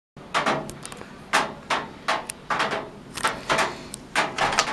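A run of sharp knocks at an uneven pace, about two or three a second, each ringing briefly.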